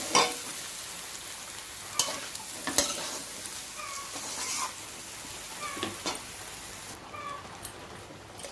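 Rice and masoor dal being stirred into fried vegetables in a hot metal karai with a flat metal spatula. A steady sizzle runs under the spatula's scrapes and knocks against the pan every second or so, with a few short squeaks.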